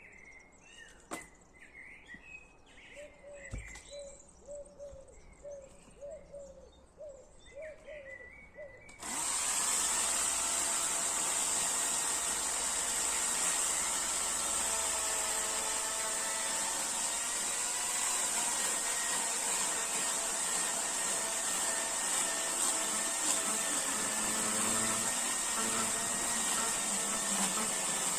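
Small birds chirping in short repeated calls, then about nine seconds in a chainsaw starts running and holds at a steady speed.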